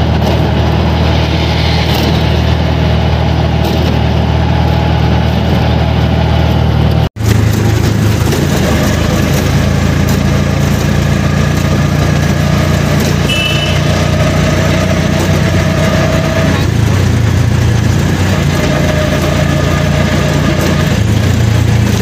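Steady low engine hum and road noise heard from inside a moving vehicle, with a momentary dropout about seven seconds in.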